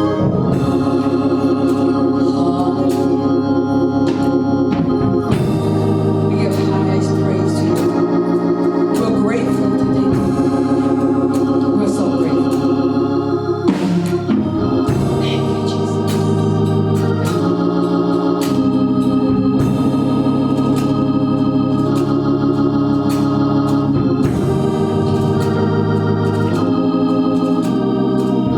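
Organ playing held chords that change every second or two.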